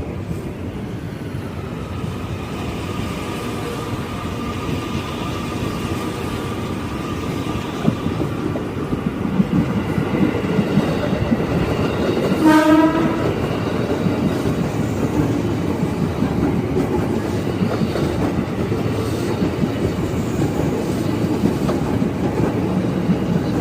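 CRRC electric commuter train running through the station, its wheels rumbling and clattering on the rails and growing louder about a third of the way in. About halfway through, the train's horn gives one short blast of about half a second.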